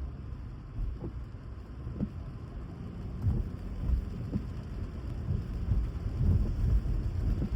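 A car driving in the rain: a steady low rumble of tyres and road noise with a light wash of rain, and a few soft low thumps.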